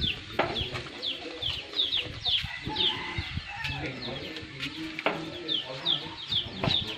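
Chickens: a steady run of short, high, falling peeps, two or three a second, over lower clucking. A couple of sharp clicks cut in, one about five seconds in.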